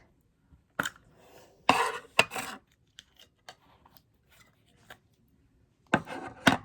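Fidget toys and a slime container being handled by hand: short scraping and clicking noises, a louder cluster about two seconds in and another near the end, with faint ticks between.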